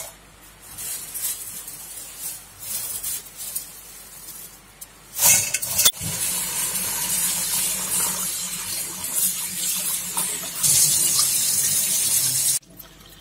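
Dry fried noodle strands rustling and crackling as they are handled into a bowl, then a kitchen tap running onto rice being rinsed in a bowl over a stainless steel sink. The water gets louder near the end and stops suddenly.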